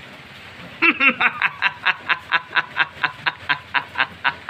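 Elderly man laughing: after a quiet first second, a long run of quick, evenly spaced bursts, about five a second.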